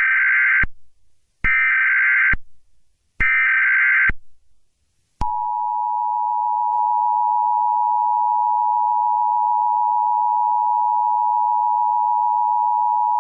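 Emergency Alert System header: three bursts of warbling data tones, each about a second long with short gaps between them. These are followed about five seconds in by the EAS two-tone attention signal (853 and 960 Hz), held steady.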